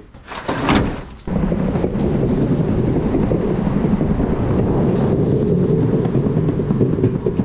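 Electric skateboard rolling along a concrete sidewalk: a steady rumble of the wheels over the pavement, mixed with wind on the microphone, starting suddenly about a second in.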